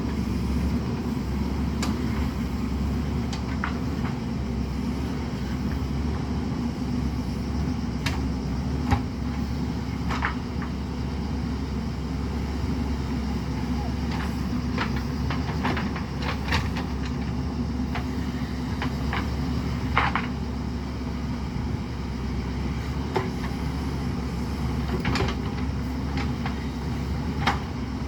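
JCB 3DX Super backhoe loader's diesel engine running steadily while working, with sharp knocks at irregular intervals, the strongest about a third of the way in, around two-thirds through and near the end.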